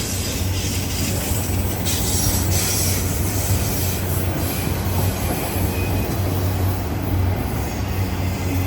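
Union Pacific autorack freight cars rolling past, a steady noise of steel wheels running on the rails.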